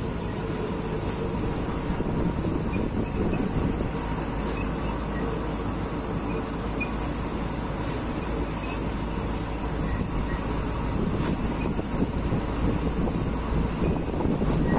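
Passenger train heard from a window of its own carriage: a steady low rumble of the train on the rails, with no distinct clacks or other single events.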